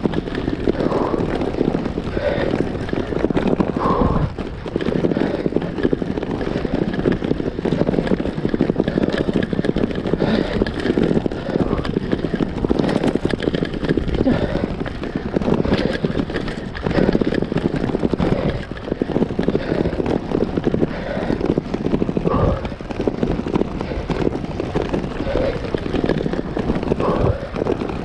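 Road bike being ridden over cobblestones (pavé): a continuous, dense rattling clatter of the frame and handlebar gear jolting on the uneven stones, with occasional harder knocks.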